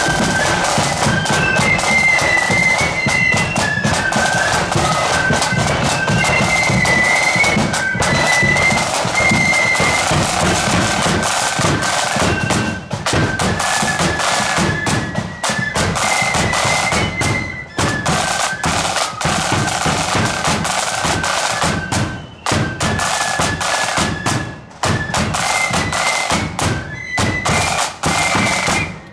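Marching flute band playing a tune: massed flutes carry a high melody over rattling snare drums and a bass drum beat. The tune stops at the very end.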